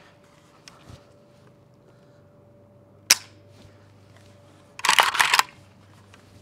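Pioneer Arms 5.56 Sporter underfolder AK being dry-fired: a single sharp metallic snap of the hammer falling about 3 seconds in, then about half a second of metal clatter from the steel action a couple of seconds later.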